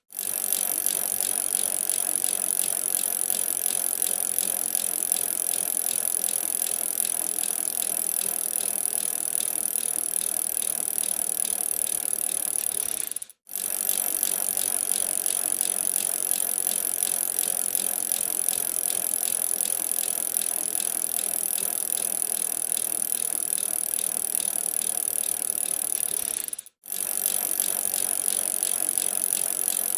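Bicycle being ridden: a steady mechanical rattle and ratcheting tick of the drivetrain, cutting out briefly twice, about 13 seconds apart.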